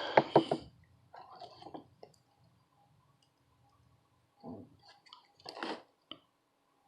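Small clicks and light scraping from tools and parts being handled during soldering work: a quick run of sharp clicks at the start, then scattered faint clicks and rustles, over a faint steady hum.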